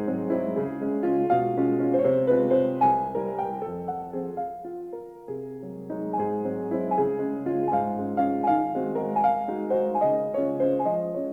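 Background piano music: a gentle melody of single notes and chords, dipping briefly in the middle before carrying on.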